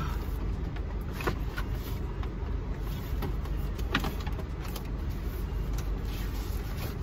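Steady low hum inside a car cabin, with a couple of short taps and rustles from a cardboard box being opened, one about a second in and another near four seconds.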